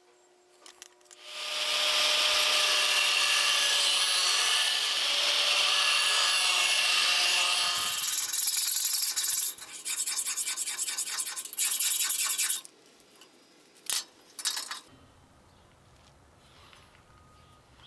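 Hardened tool-steel knife blank, cut from an old cold-saw blade, being worked by a tool: a steady harsh rasping for about six seconds, then several shorter passes that stop and start, then a few light knocks.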